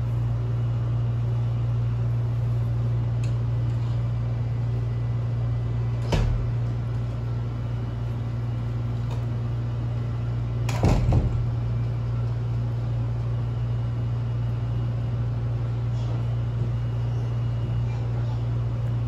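Steady low mechanical hum throughout, with a single knock about six seconds in and a short clatter of knocks around eleven seconds.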